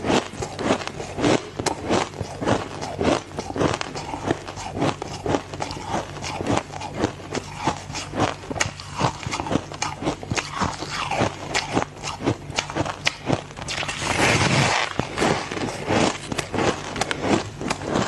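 Ice being bitten and chewed, a continuous run of sharp crunching cracks several times a second, with a longer, denser crunch about fourteen seconds in.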